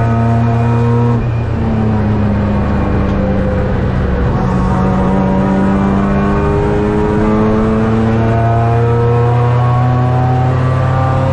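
Race car engine heard from inside the stripped, caged cockpit, pulling hard under full throttle. There is a quick gear change about a second in, then the revs climb steadily as the car accelerates.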